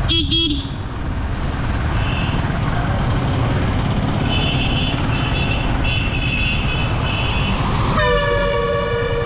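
Steady wind and road noise from a moving motorcycle, with two quick horn toots at the start and a long horn blast starting near the end from a truck passing alongside. Faint, high intermittent beeping runs through the middle.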